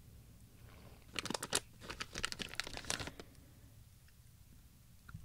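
Plastic packaging of a Haribo gummy-bear bag crinkling as fingers rummage in it for a gummy. The crackle comes in a quick run of rustles starting about a second in and lasts about two seconds.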